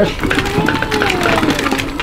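Sausages, potatoes and corn tumbling off a metal sheet pan into a stockpot of boiling water: a rapid run of knocks and clatters as the food hits the tray and the pot.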